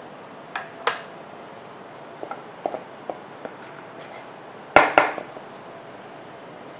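Kitchen utensils knocking and clicking on a counter, cutting board and bowl: a few light taps and ticks, then two sharp knocks close together about five seconds in.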